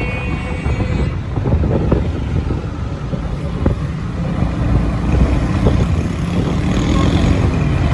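Steady low rumble of a moving vehicle's engine and road noise while driving through city traffic, with a few small knocks and clicks.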